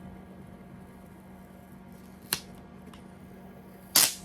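Packaging of a CD box set being handled: a light click about two seconds in and a louder sharp snap near the end, over a faint steady hum.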